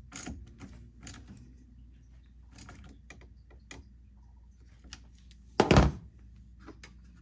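Hand ratchet clicking in short runs as a battery terminal nut is tightened, then one loud dull thump about three-quarters of the way through.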